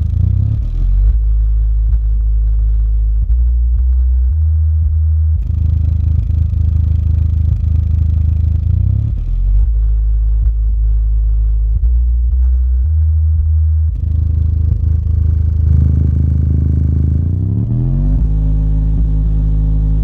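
Polk Audio PSW10 10-inch subwoofer playing a bass test track loudly: deep held bass notes that step to a new pitch every second or so, with a couple of sliding notes, and little sound above the low end.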